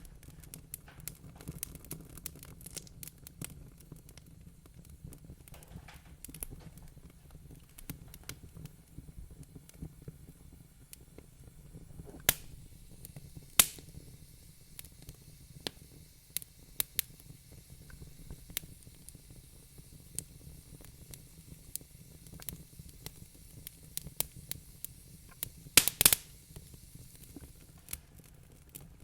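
Wood fire crackling in a fireplace: irregular snaps and small pops, with a few louder pops about 12 and 13 seconds in and a quick cluster of pops near the end, over a low steady rumble.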